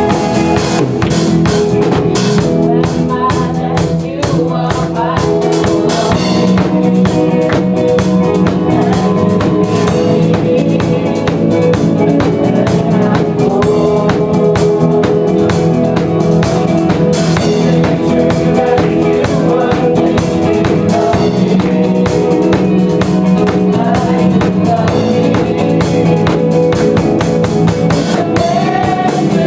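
A worship song with drum kit and guitar keeping a steady beat and voices singing over it.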